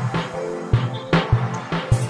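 Background music with a steady drum beat and a pulsing bass line.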